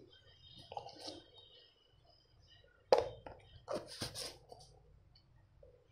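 Light clicks and knocks of kitchen utensils handled at an aluminium pressure cooker while turmeric is spooned in: one sharp click about three seconds in, then a short cluster of knocks.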